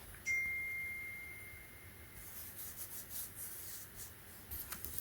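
A single ringing chime: one clear high tone that starts sharply and fades away over about two seconds, followed by a few faint light ticks.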